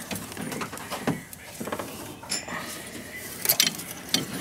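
Hands wrapping silicone tape around a metal coolant pipe, with crinkling and rustling and scattered small metallic clicks and clinks, the sharpest cluster about three and a half seconds in.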